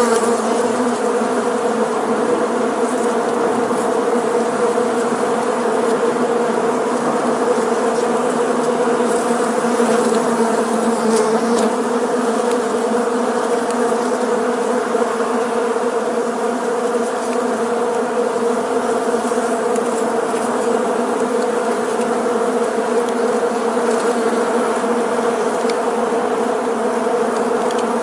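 A swarm of bees in flight, a dense, steady buzz of many wingbeats blended into one hum.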